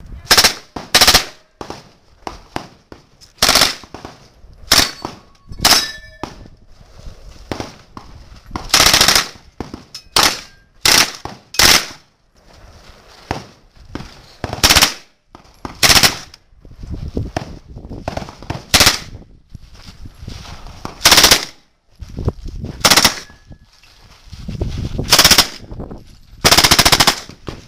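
Pistol-caliber submachine gun or carbine fired in about fifteen short rapid bursts, the longest lasting about a second, with pauses between them.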